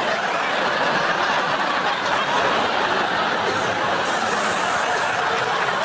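Studio audience laughing, steady and sustained.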